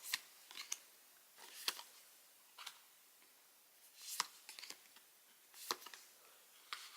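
Photo cards being handled and flipped through: a string of short, faint slides and taps, roughly one every second.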